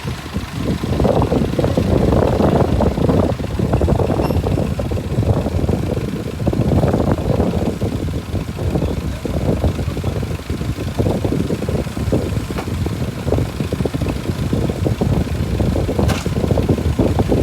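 Mitsubishi BD2F bulldozer's diesel engine running at work, its level rising and falling every second or two.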